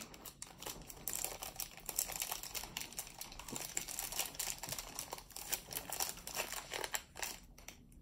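Packaging of a mail-order phone case crinkling and rustling in the hands as it is being opened, with a run of irregular crackles.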